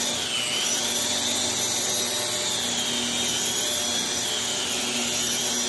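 Angle grinder with a diamond grinding cup running steadily as it grinds down a hump in a concrete slab, its high motor whine sagging slightly a couple of times as it bites in, with a vacuum drawing the dust through the grinder's shroud.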